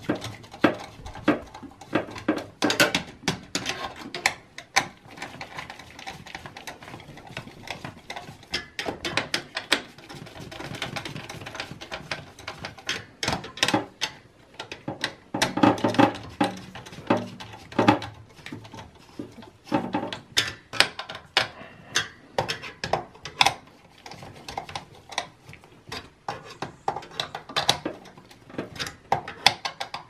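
Screwdriver tightening the spring-loaded mounting screws of a CPU heatsink cooler in a desktop tower: an irregular run of sharp clicks and short metallic scrapes.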